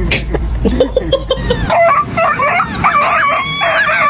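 A pet animal making a string of high, wavering whining cries that rise and fall in pitch, getting higher about halfway through.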